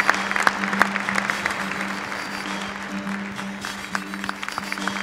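Audience in a large hall applauding, scattered sharp claps over stage music with a steady held low note.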